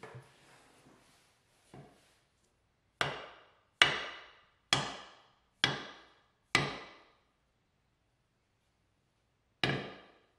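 Wooden axe handle tapped down on its butt end to seat a double-bit axe head onto it. There are five sharp knocks about a second apart, each with a short ring, then one more after a pause.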